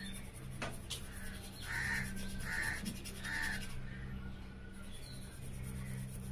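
A crow cawing three times in quick succession, under a second apart, over a steady low hum.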